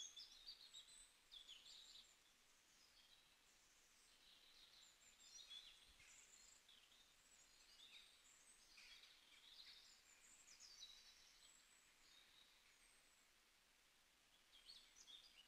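Near silence, with faint high chirps scattered throughout.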